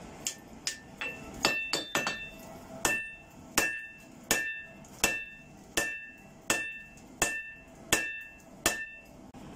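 Hand hammer striking a red-hot Damascus steel billet on an anvil, about a dozen evenly paced blows, roughly one every three-quarters of a second, each leaving a short metallic ring. This is hand-forging, drawing the billet's tip to a point.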